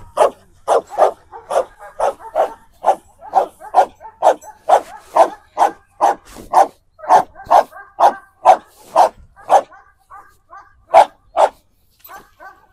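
A dog barking rapidly and repeatedly, about two barks a second. Near the end the barks grow softer and higher, with two loud barks among them.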